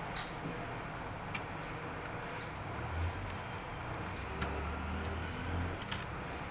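Steady road-traffic noise, with a vehicle's low engine hum swelling about two-thirds of the way through and a few sharp clicks.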